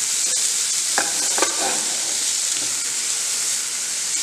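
Chopped onion, capsicum and carrot sizzle in hot oil in a nonstick frying pan while they are stirred with a silicone spatula. There are a few short scrapes of the spatula about a second in.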